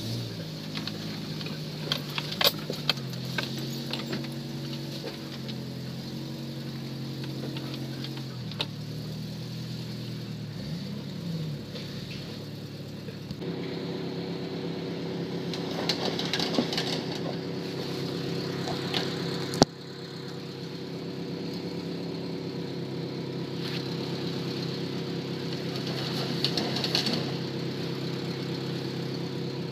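Off-road 4x4's engine running at low revs, its pitch shifting a little, with sharp clicks and knocks in the first few seconds and a single sharp click near the middle.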